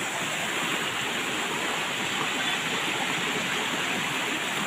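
Shallow river water rushing over rocks and small rapids, a steady rush with no breaks.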